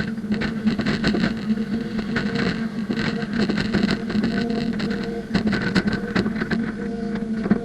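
Hydraulic excavator working: its diesel engine and hydraulics run with a steady hum, under frequent metallic clicks and clattering from the machine as it works.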